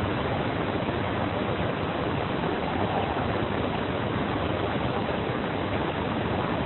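Steady, even hiss of static from a played-back audio recording, with no distinct voice in it.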